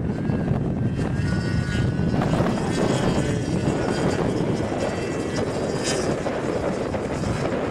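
Snowmobile engines running hard across the snowfield: a steady drone with a faint whine that rises and falls.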